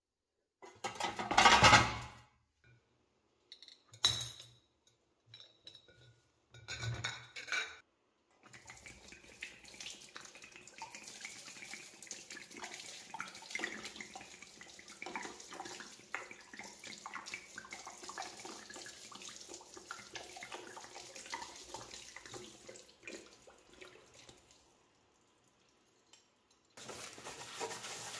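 Running water with small metal clinks, after a louder clatter and a few short knocks in the first seconds; it stops near the end.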